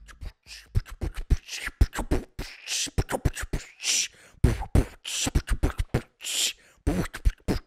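Percussive outro music: a fast, dense run of beatbox-style hits, deep kick-like thumps alternating with hissing snare-like bursts.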